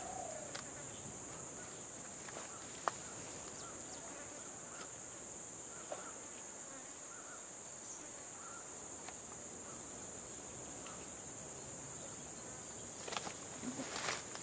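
A steady, high-pitched insect chorus, with a second, even higher insect drone joining about ten seconds in. A few sharp clicks, and rustling near the end.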